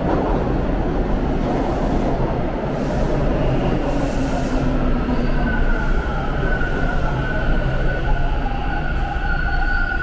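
TTC Line 2 subway train pulling into the station and slowing, with a heavy rumble of wheels on rail. A whine falls in pitch through the first half, and a steady high squeal sets in about halfway as the train nears a stop.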